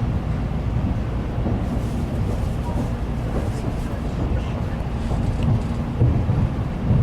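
Shinkansen bullet train running at speed, heard from inside a passenger car: a steady low rumble with a couple of louder low thumps near the end.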